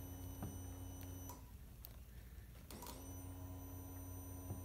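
Honda Rancher 420 ATV's electric fuel pump priming, a faint steady whine in two runs: the first cuts off about a second in, and the second starts with a click just under three seconds in and stops near the end. It runs only when the worn kill switch makes contact, the fault behind the no-prime, no-start problem.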